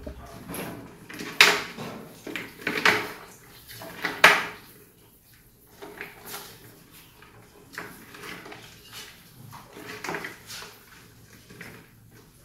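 Rodents scrambling over a plastic water-bottle trap on a clay pot, making irregular knocks and scrapes. The loudest three come in the first few seconds, followed by fainter scattered taps.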